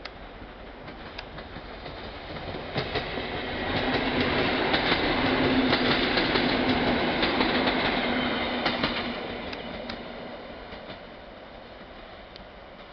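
Newag 14WE electric multiple unit passing close by. It builds up, is loudest for several seconds and then fades away, with wheels clicking over rail joints and a steady low hum.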